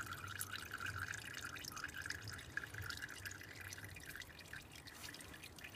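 Residual engine oil dripping into a plastic drain basin after the oil filter has been unscrewed, a quick irregular patter of drops that thins out toward the end.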